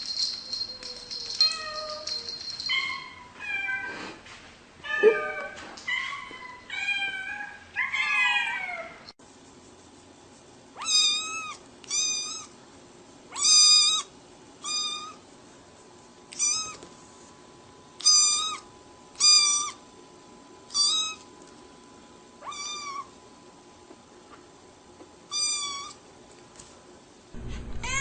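Cats meowing. First comes a run of quick meows that vary in pitch, then, after a cut, a cat meows again and again, about one call every second or so.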